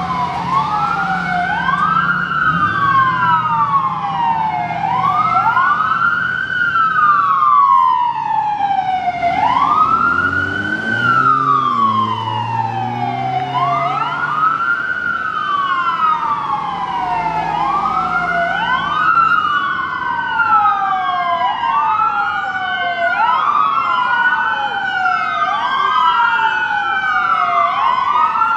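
Two emergency vehicles' electronic sirens on wail, each rising and falling in slow sweeps of a few seconds, out of step with each other so the sweeps overlap and cross.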